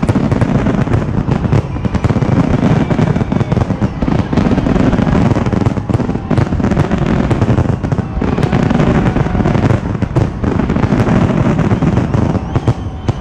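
Aerial fireworks bursting in rapid succession: overlapping deep booms and sharp cracks with no pause between them.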